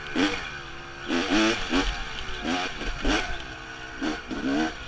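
Dirt bike engine revving up and down repeatedly under changing throttle, with the pitch climbing and falling about once or twice a second.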